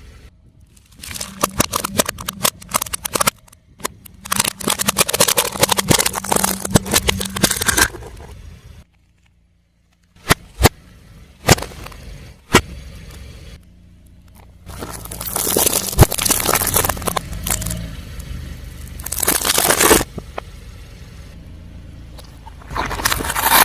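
Brittle objects cracking and crackling under a car tyre in several separate bursts, with a few sharp single snaps midway and a low car hum underneath.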